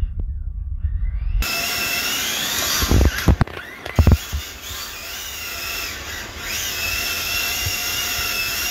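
Kyosho Mini-Z AWD MA-020 RC car's small electric motor and gear drive whining, the pitch wavering up and down with the throttle over a steady hiss, starting abruptly about a second and a half in. A few sharp thumps come about three and four seconds in.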